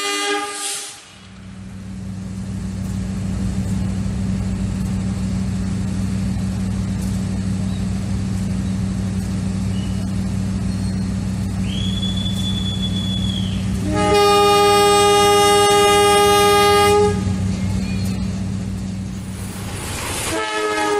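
Diesel locomotive engine running with a steady low drone, and a locomotive horn blowing for about three seconds a little past the middle. Another horn blast starts near the end.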